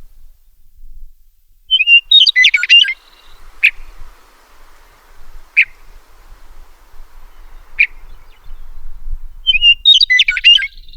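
Western meadowlark singing two gurgling, flute-like song phrases, each opening with a whistled note and then tumbling into quick jumbled notes. Between the songs come three single sharp call notes, about two seconds apart.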